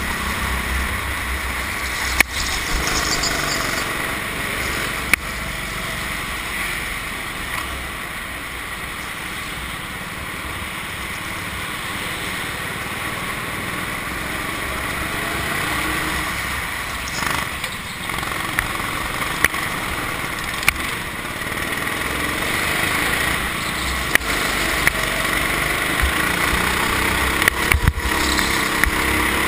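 Go-kart engine running under throttle as the kart laps the track, easing slightly partway through and building again, with a few sharp clicks.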